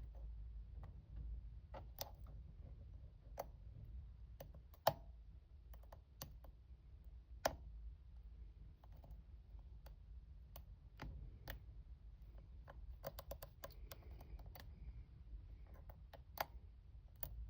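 Faint, irregular clicking of a steel hook pick and tension wrench working the pins inside a small brass padlock, with a few sharper clicks among them. The picker finds the pins hard to feel.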